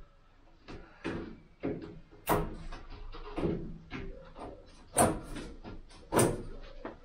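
Irregular knocks and clicks of hands and a tool working at the window trim on a VW T2 Bay camper van's body, with three sharp, loud knocks about two, five and six seconds in.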